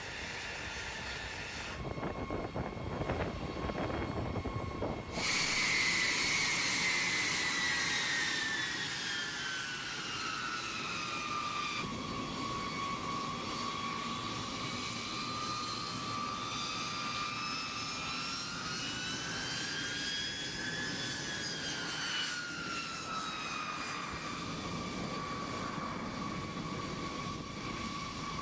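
Boeing B-52H Stratofortress's TF33 turbofan jet engines running at ground power, a high whine over a rushing rumble. The sound shifts abruptly twice in the first five seconds; then the whine falls in pitch, rises again, and falls back as the bomber taxis past.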